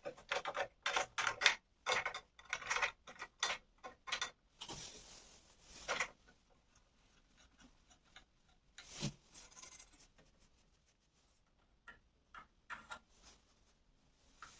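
Irregular clicks and knocks of metal parts being handled as a band saw's rip fence and clamp are fitted, dense for the first several seconds, with a short scrape about five seconds in and a dull knock about nine seconds in, then only a few scattered clicks.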